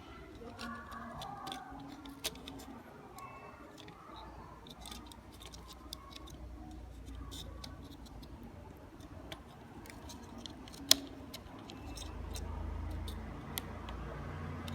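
Small plastic clicks and taps from handling mouse parts as a 3D-printed scroll-wheel piece is pressed onto the mouse's encoder, with one sharp click about eleven seconds in.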